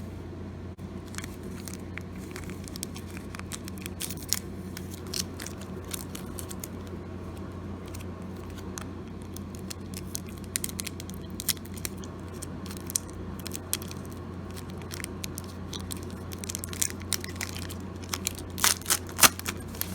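A trading card pack wrapper being torn open and crinkled by hand, a string of scattered crackles and snaps that grows busier and louder near the end.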